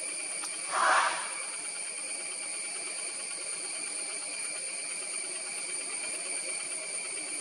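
Steady high-pitched drone of forest insects, sitting in several even bands, with one short louder noise about a second in.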